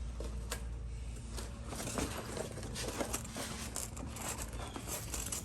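Light handling noise: scattered soft rustles and small clicks of fabric door bags and their straps being fitted, over a steady low hum.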